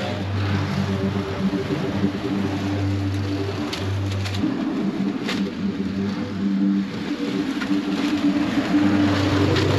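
Walk-behind push mower engine running under load while cutting grass, its pitch shifting slightly up and down, with a few brief clicks about four and five seconds in.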